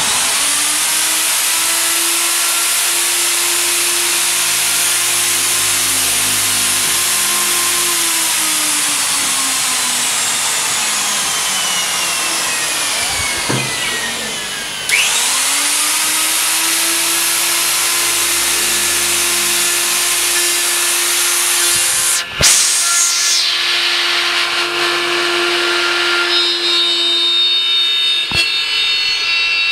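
Electric plunge router running at full speed with a steady high whine. About halfway through, its pitch falls away and comes back up sharply, and there is a sharp click later on.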